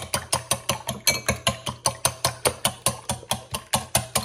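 Metal whisk beating eggs in a glass bowl, striking the glass in a fast, even rhythm of about six clinks a second.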